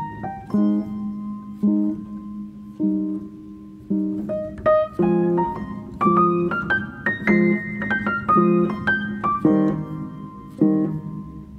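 Background piano music: chords and single melody notes struck at a steady pace, each ringing and fading, with the melody climbing higher in the middle.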